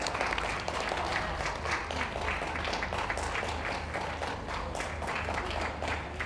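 Ringside audience applauding, a dense patter of many hands clapping that dies away near the end.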